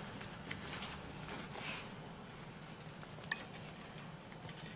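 Quiet handling of freshly mixed glitter slime, soft sticky sounds with a few light clinks and one sharper click about three seconds in.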